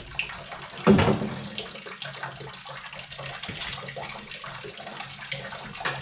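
A thin stream of backed-up waste water trickling steadily from an opened cleanout on a blocked, fat-clogged drain pipe into a half-full plastic tub. A sharp clunk about a second in is the loudest sound.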